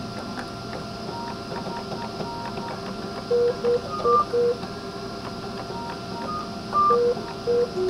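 Homemade pipe organ sounding short single notes, clear one-pitch tones played in small groups with pauses, the loudest a cluster of four a little past the middle and two more near the end. Under them runs the steady hum and hiss of the air-conditioning blower that supplies the wind.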